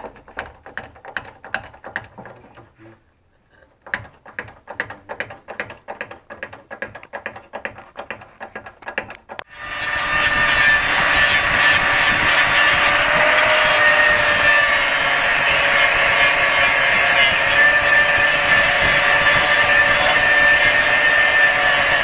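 Rapid, irregular clicking for the first nine seconds or so, then an angle grinder starts and runs steadily under load to the end, grinding about a millimetre off a new rear-beam silent block that is 66 mm long where the old one was 65 mm.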